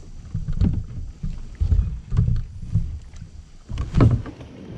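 Irregular low thumps and knocks from a kayak and its gear being handled and moved at the water's edge, the loudest about four seconds in.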